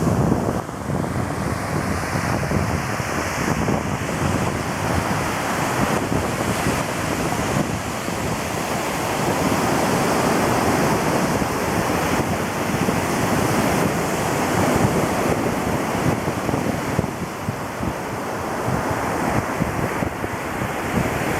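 Ocean surf breaking and washing up the beach in a continuous rush that swells and eases, with wind buffeting the microphone.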